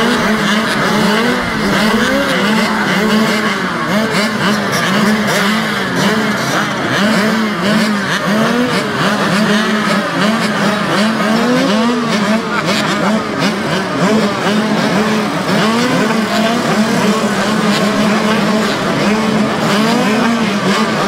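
Several kids' mini motocross bikes running together at a starting gate, their riders blipping the throttles so that the engine notes rise and fall over one another without a break. This is the revving held at the line while waiting for the gate to drop.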